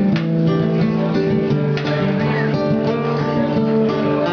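Music led by acoustic guitar, strummed and plucked, with held notes changing at a steady pace.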